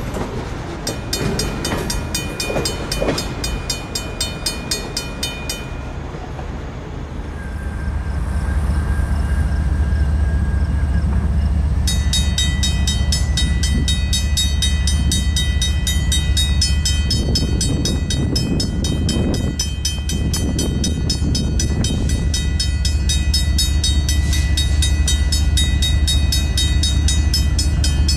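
Mechanical railroad crossing bells: an electromagnetic hammer striking a gong in rapid, steady strokes. One bell rings for the first few seconds and stops. About twelve seconds in, a second bell with a different tone starts and rings on, over a steady low rumble that began a few seconds earlier.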